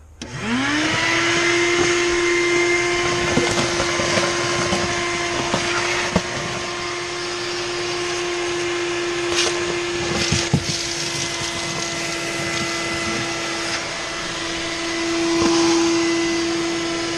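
Shop-Vac wet/dry vacuum switched on, its motor spinning up within the first second to a steady whine over a rushing hiss. It keeps running as the hose sucks up dirt and rat droppings, with a few clicks and rattles as debris goes up the hose.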